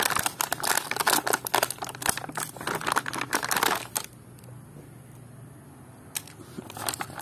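Thin plastic toy packaging crinkling and rustling as hands pull a bag open: a dense run of crackles for about four seconds, then quieter, with a few more crinkles near the end.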